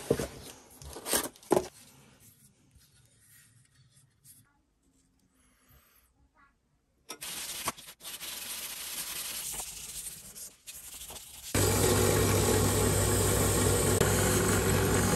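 A few sharp rips of cardboard packaging being torn off a metal hand plane. Then a pad scrubbing over the plane's metal body. About three-quarters through, a drill press starts up and runs with a steady hum, its spinning disc taking paint off the plane's handle casting.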